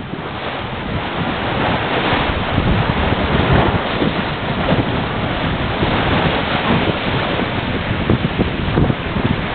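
Wind buffeting the microphone over the steady rush of sea water and waves around a sailing yacht under way.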